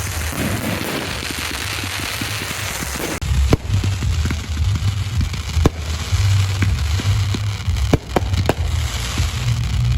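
Professional aerial fireworks going off: a dense crackling hiss for about the first three seconds, then a low rumble with scattered sharp cracks.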